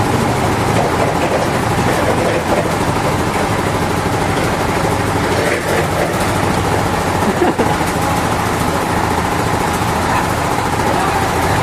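Sawmill machinery running steadily, a loud continuous engine-like noise with a low hum.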